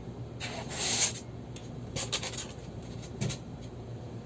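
Handling noise as the humidifier's parts are picked up and rubbed. A scraping rub runs for just under a second, starting about half a second in. A few light clicks follow around two seconds in, then a single knock a little after three seconds.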